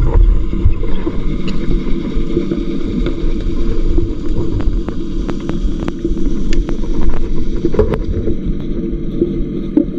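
Boat engine heard underwater: a steady low hum with a throbbing undertone, carried through the water, with scattered sharp clicks over it.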